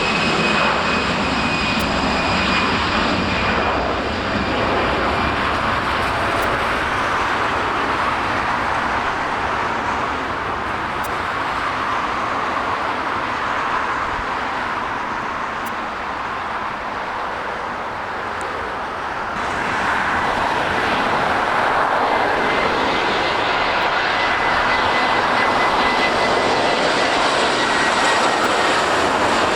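Jet airliner engines passing close by, a loud steady rush with a high whine that slowly falls in pitch. The sound dips a little past the middle, then swells again about twenty seconds in with a fresh whine that also slowly falls, as another jet comes through.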